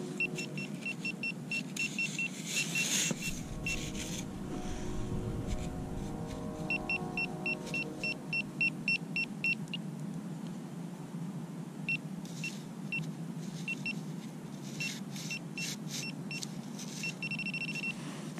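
Metal-detecting pinpointer probe beeping in quick runs of short high beeps that come and go as it is swept through loose sand, homing in on a buried coin (a penny), with the sand scraped and sifted by hand in between.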